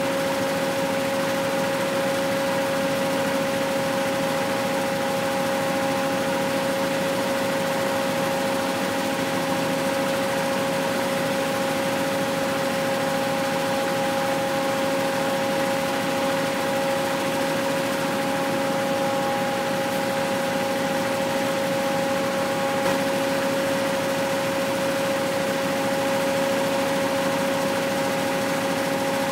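Abaca twin-spindle decorticating machine running steadily with a constant whine while abaca stalks are drawn through its rollers to strip out fiber.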